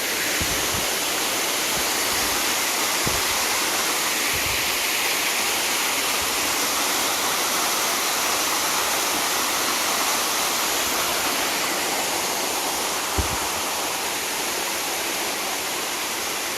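Small waterfall pouring close by: a steady rushing hiss of falling water, with a few faint low knocks and one brief thump about thirteen seconds in.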